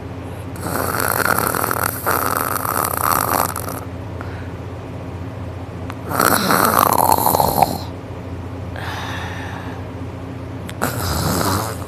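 A man snoring loudly in his sleep: four long snores a few seconds apart, the second falling in pitch as it ends and the third fainter.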